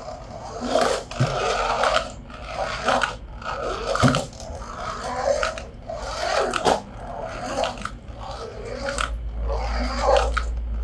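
Toy packaging and plastic parts being handled: irregular crinkling and scraping with sharp clicks. A low hum comes in near the end.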